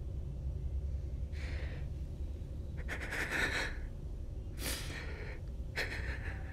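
A person breathing heavily: four short, gasping breaths, the second and third the longest, over a steady low hum.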